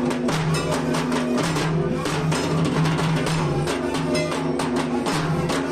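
Music: a melody of held notes over steady drum beats.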